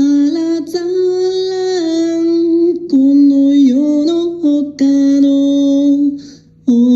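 Background song: a singing voice holding long, steady notes in short phrases over a quiet backing.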